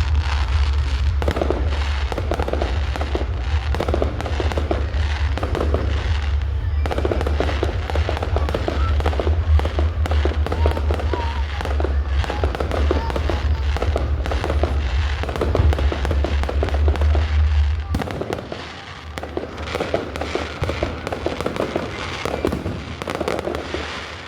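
Fireworks display going off in rapid succession, a dense run of crackling bangs and pops. A steady low rumble underneath drops away about eighteen seconds in.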